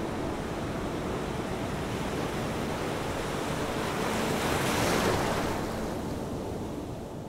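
Surf washing on a shore, with wind, as a steady rushing noise that swells to a peak about five seconds in and eases off near the end.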